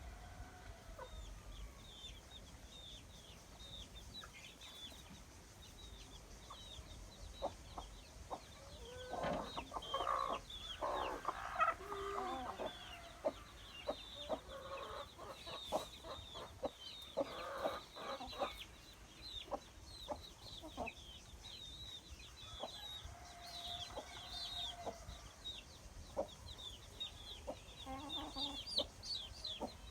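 Chickens clucking in scattered groups, over a continuous stream of short, high, falling peeps.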